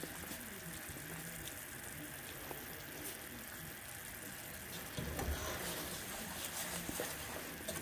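Saucepan of chocolate no-bake cookie mixture simmering on the stove, giving a faint steady bubbling hiss as it comes up toward a boil while a spatula stirs it. A few soft bumps about five seconds in.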